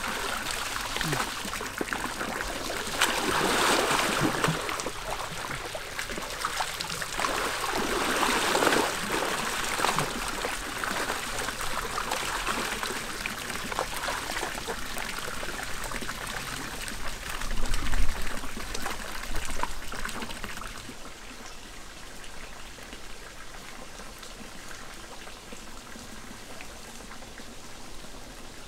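Water trickling and pouring from a bamboo pipe into a bamboo-walled pool, with louder splashing from people moving in the water a few seconds in and again about eight seconds in. A low thump about eighteen seconds in is the loudest sound; after that the water runs on more quietly.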